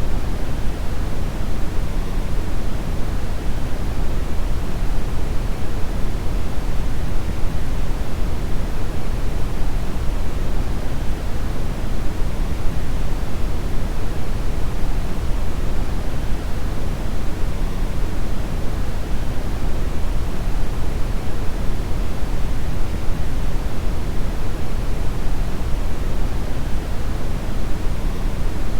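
Steady synthetic brown noise: an even, deep hiss weighted toward the low end, without change.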